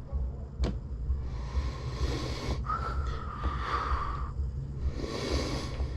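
A person sniffing deeply at an open soda twice, each sniff a long rush of air, with a short sharp click just under a second in.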